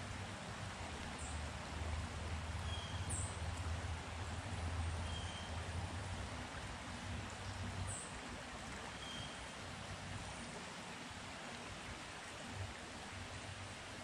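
Steady rushing outdoor forest ambience, with a low hum through the first half that returns briefly near the end. A few faint, short, high chirps are scattered through it.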